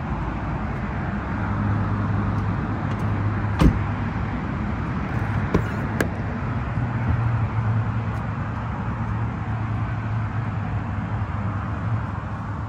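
Steady low hum with a sharp knock about three and a half seconds in, then a click and a latch snap near six seconds as the rear passenger door of an SUV is pulled open by its handle.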